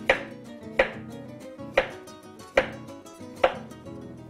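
Chef's knife slicing zucchini into rounds on a wooden cutting board: five sharp knocks of the blade meeting the board, a little under one a second.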